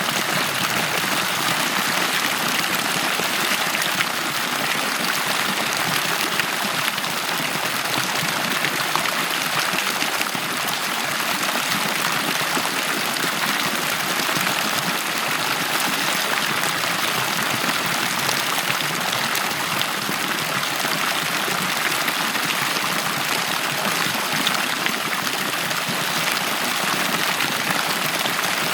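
Water at a pool flowing and splashing in a steady, unbroken rush.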